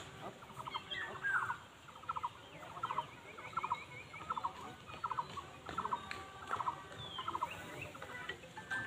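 Bird calls: a short, quick rattling call repeated over and over, about once every two thirds of a second, with a few thin falling whistles, quiet against faint outdoor background.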